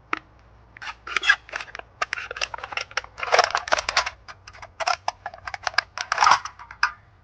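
D2 steel folding knife blade piercing and slicing through material in a quick series of short, sharp cutting strokes.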